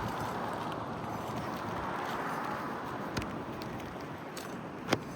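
Hand work on an asphalt shingle roof: steady scraping and rustling, with two sharp taps, a faint one past the middle and a louder one near the end, as nails are worked loose to lift a shingle.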